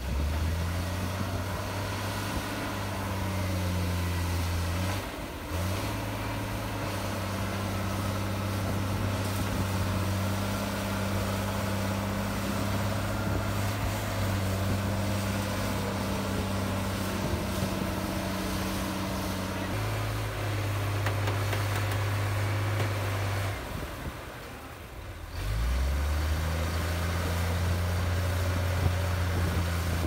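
Komatsu D53P bulldozer's diesel engine running with a steady low drone. It cuts out briefly about five seconds in and goes quiet for a couple of seconds about three-quarters of the way through, then carries on.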